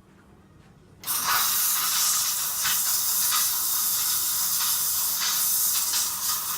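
Steam wand of a Tchibo Cafissimo coffee machine purging: a loud, steady hiss of steam that starts suddenly about a second in, with a few spits, and cuts off near the end. The machine is clearing leftover water from the wand before milk is frothed.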